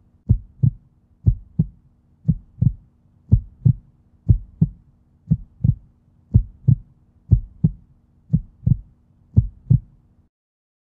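Heartbeat sound effect: a steady lub-dub double thump about once a second, stopping about ten seconds in.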